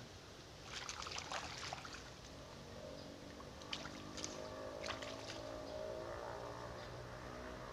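Light splashing and sloshing of shallow stream water as a man wades and works his hands in it to free a snagged fishing line. A few sharp splashes come between about 3.5 and 5 seconds, over a steady low hum that starts about three seconds in.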